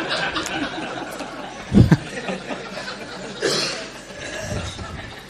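Listeners chuckling and laughing softly, with a brief louder laugh just under two seconds in.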